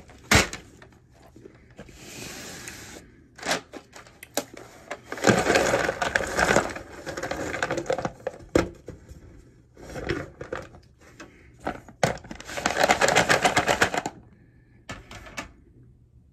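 Packaging being handled and opened: a sharp click just after the start, then crinkling and tearing noise in bursts about two seconds long, the loudest around five and twelve seconds in.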